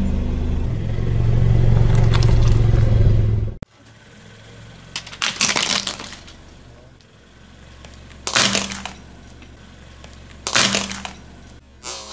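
A car tyre rolling over and crushing small plastic objects on concrete: a steady low rumble for the first few seconds that cuts off abruptly, then three separate sharp cracks and crunches a few seconds apart.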